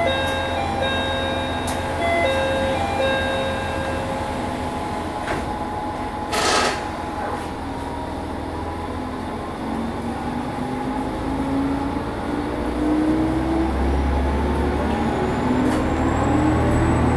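Matsuura Railway MR600 diesel railcar's engine running steadily, with a short run of electronic beeps in the first few seconds and a brief hiss of air about six and a half seconds in. From about ten seconds the engine revs up and its pitch climbs steadily as the railcar accelerates.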